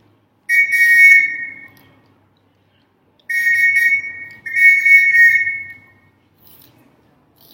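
A signal whistle blown in three long blasts, each holding a steady shrill tone of two close pitches; the last two blasts almost run together. The long blasts are Morse code dashes sounded for a lesson.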